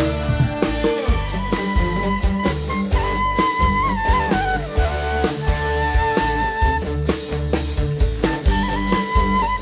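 Live dangdut band music: a held melody line that slides down in pitch about four seconds in, over a steady drum and bass beat.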